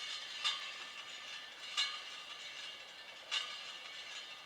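Honda 50 spoked front wheel spinning on its axle against a dial gauge: a steady whir with a sharp tick about every second and a half.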